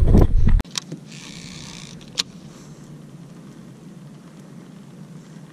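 Wind buffeting the microphone, a loud rumble that cuts off abruptly about half a second in; after that a quiet steady low hum, with a short hiss at about a second in and a few sharp clicks.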